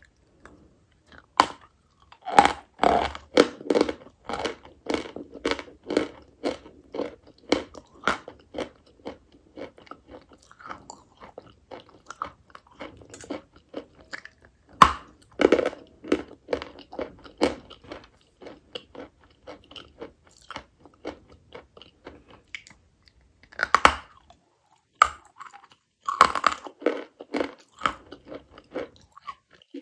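Dry white chalk being bitten and chewed: several sharp, crisp bites off a chalk block, each followed by a run of crunchy chewing at about two chews a second.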